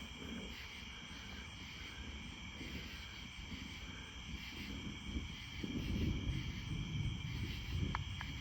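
Distant thunder from a supercell thunderstorm rolling low, swelling about two-thirds of the way through, over a steady chorus of night insects.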